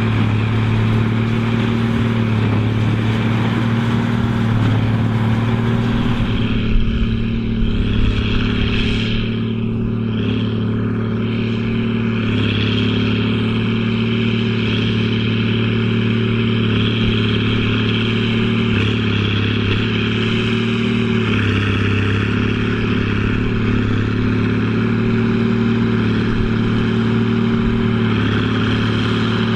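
Case 2294 tractor's six-cylinder diesel running steadily under load while pulling a Massey Ferguson 190 big baler. About six seconds in the sound turns duller, with a few light clatters, then carries on evenly.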